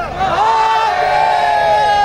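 A group of men shouting a long, held cry in unison, many voices on one pitch. It breaks briefly at the start, then rises again and is held steady.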